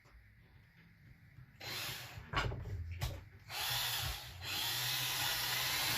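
Power drill with a 1/8-inch bit drilling out a small rivet from a chainsaw carburetor metering diaphragm, run in a few short bursts and then held on steadily from about halfway through. The rivet keeps spinning with the bit instead of being cut.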